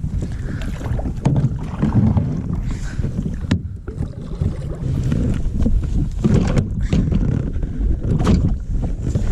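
Wind buffeting the microphone in a loud, uneven low rumble, with a few sharp knocks scattered through it.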